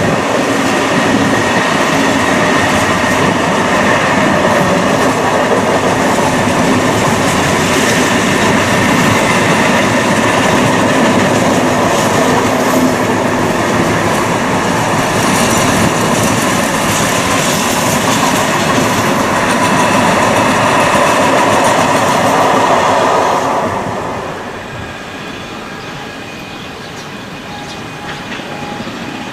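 Freight train wagons rolling past with wheels clattering over rail joints and a faint wheel squeal. The noise stays loud, then falls off sharply about three-quarters of the way through as the end of the train goes by.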